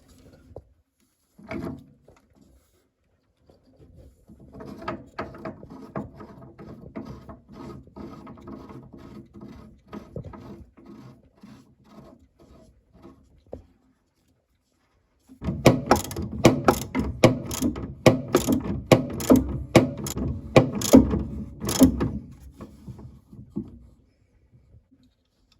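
Hands working small boiler parts, the flow turbine and sensor fittings: irregular clicking and rattling, turning into a louder, quicker run of sharp clicks about halfway through that stops a few seconds before the end.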